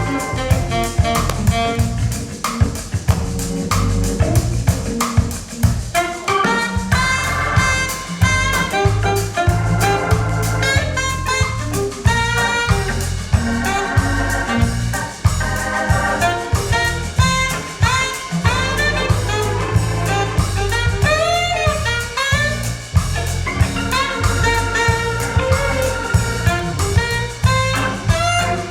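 Lively jazz with drum kit and horns, played from a vinyl record with an optical cartridge through a hi-fi system on Sonus faber Aida 2 SE floorstanding speakers, heard as it sounds in the room.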